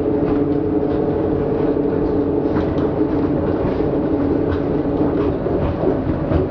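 Cabin running noise of a Translohr rubber-tyred tram under way, a steady rumble with a steady motor hum.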